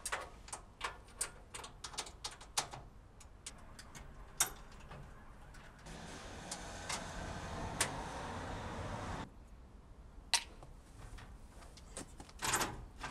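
Hand tools clicking and clinking on metal as the bolts holding a car's front grille are undone, in a quick run of sharp taps. About halfway through, a steady rushing noise runs for about three seconds and cuts off suddenly.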